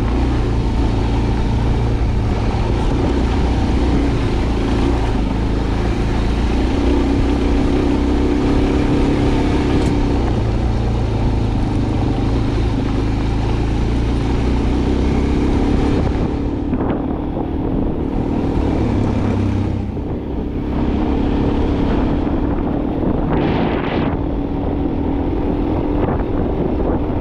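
A motor vehicle's engine running steadily, a low hum with a hiss above it; the hiss thins out about two-thirds of the way through.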